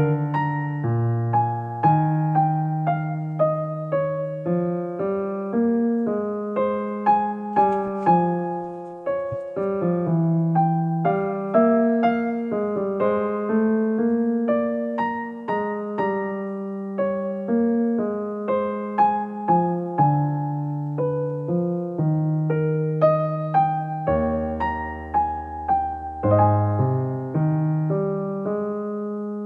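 Background piano music: a gentle piece of notes and chords struck one after another, each fading away.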